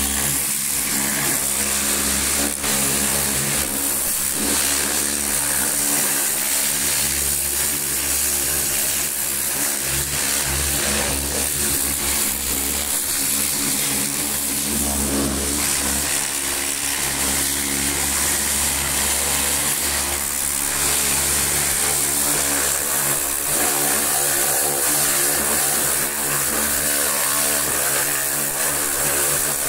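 Pressure washer running steadily: a constant motor-and-pump drone under the hiss of its water jet spraying over a tractor's engine and chassis.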